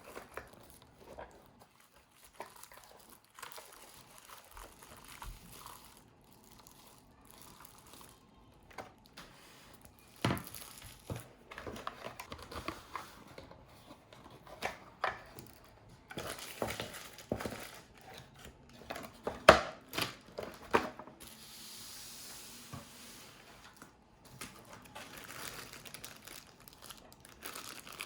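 Packaging being handled while a keyboard is unboxed: plastic and paper crinkling and rustling, with scattered sharp knocks and clicks that are loudest past the middle. A steady hiss, like something sliding out of a sleeve, lasts about two seconds a little later.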